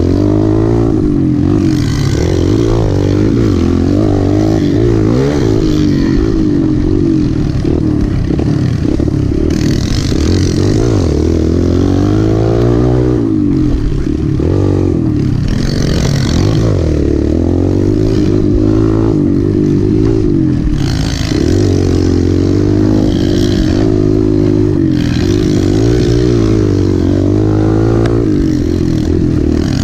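Kawasaki KLX pit bike's small four-stroke single-cylinder engine, heard from on board while it is ridden along a dirt trail, revving up and dropping back over and over as the rider opens and closes the throttle.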